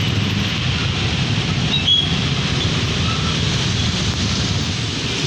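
Road traffic on a rainy road: the steady low rumble of a large vehicle's engine, mixed with a hiss of tyres and rain, and a brief high squeak about two seconds in.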